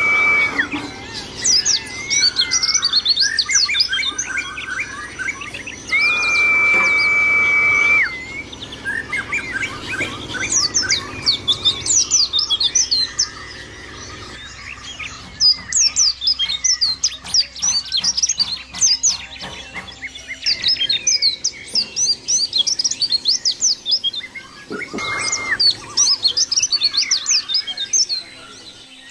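White-eye (pleci) singing a fast, high-pitched twittering song in rapid runs of chirps with short pauses between them. A long, flat whistled tone is held at the very start, again for about two seconds around six seconds in, and briefly near the end.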